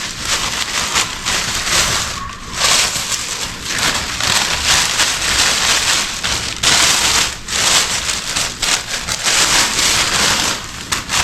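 Plastic wrapping crinkling and rustling in uneven surges as a small artificial Christmas tree is unwrapped.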